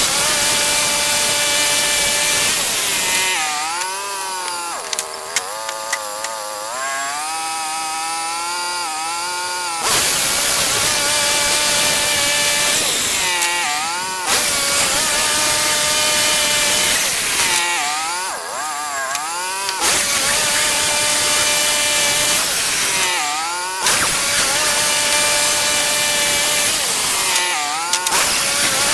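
Engine-driven portable band sawmill running under load, its blade cutting through a log with a steady hiss. The engine pitch sags and recovers several times, and the sound drops back for a few seconds about 4 seconds in.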